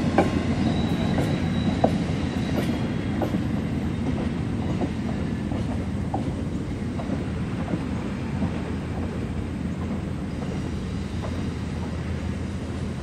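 Stainless-steel Amtrak passenger cars rolling past on the rails: a steady low rumble with the wheels clicking over rail joints, the clicks thinning out and the whole sound fading slowly as the train moves away.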